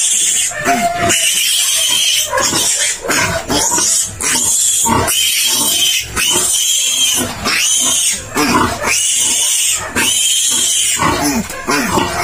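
Newborn piglet squealing loudly and repeatedly, about one shrill squeal a second with short breaks for breath, distress squeals while it is held down and its tail is cut off with a razor blade.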